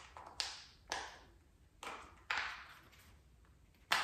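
Silicone push-pop bubble fidget toy being pressed: about five popping clicks at irregular spacing, each dying away quickly.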